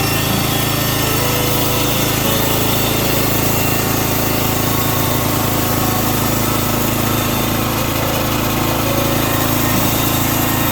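Norwood portable band sawmill running steadily: a constant engine drone with the sound of sawing layered on it.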